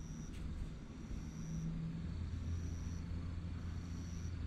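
Outdoor background hum: a steady low hum that deepens and strengthens about halfway through, with a thin high-pitched tone coming and going roughly once a second.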